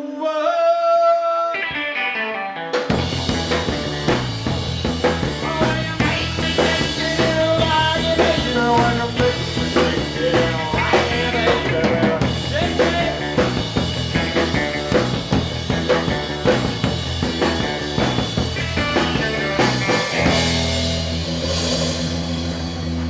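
A rock band playing with a full drum kit. It opens on held notes, the drums and full band come in about three seconds in, and near the end it settles onto a steady low held chord.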